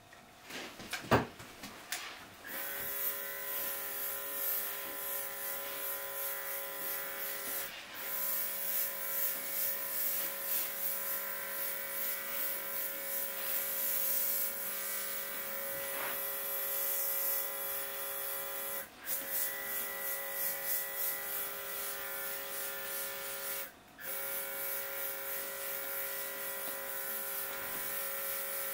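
A sharp click or two about a second in, then a small portable USB-C airbrush compressor runs with a steady whine over the hiss of air and paint from the airbrush as it sprays. The motor cuts out briefly three times and starts again.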